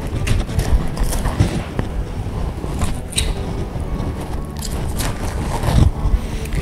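Butcher's knife cutting and scraping along the meat and bone of a hanging veal hindquarter during deboning: irregular short scrapes over a steady low rumble.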